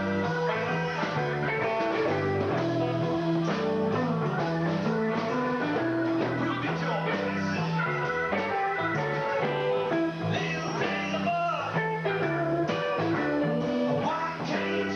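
Live rock band playing a blues-rock jam: electric guitar lines over a stepping bass line and drums.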